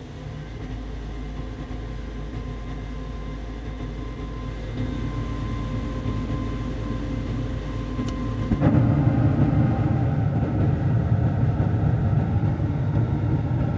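Gas furnace on a test fire after cleaning: the draft inducer fan starts abruptly and runs with a steady hum. About eight seconds in, a click is followed by a louder rushing sound that carries on, the burners lighting.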